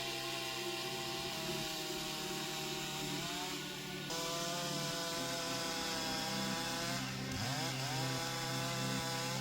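Gasoline chainsaw running at high revs through wood. The engine pitch sags briefly about a third of the way in and again near three-quarters, then climbs back.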